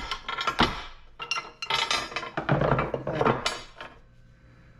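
Metal parts from a torn-down pressure washer motor clattering and clinking as they are handled and set down: a quick run of knocks with a short ring after each, stopping near the end.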